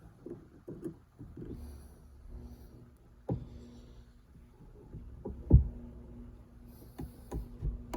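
Scattered knocks and clicks of hands working at the shifter assembly and its retaining clips, the loudest a low thump a little past halfway, over a faint steady hum.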